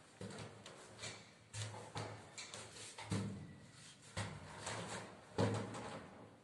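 Irregular knocks and clatter, a few each second, with the loudest knock about five seconds in.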